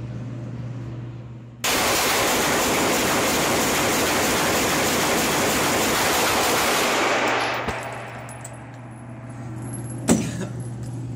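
Smith & Wesson M&P 9 pistol fired as fast as possible, the 9mm shots running together into one continuous blast of noise for about five seconds. It then stops abruptly, and a single sharp knock follows a few seconds later.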